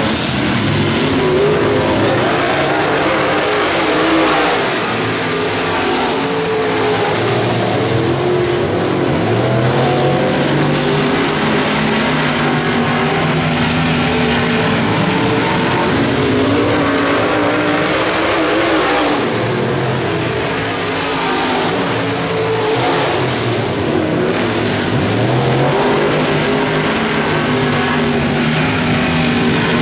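Dirt late model race cars running on a clay oval, their V8 engines loud and steady, rising and falling in pitch again and again as the drivers get on and off the throttle.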